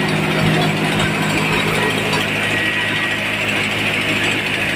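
Belt-driven rice mill running steadily while milling palay into white rice: a constant mechanical drone with a hiss of grain pouring through the chute.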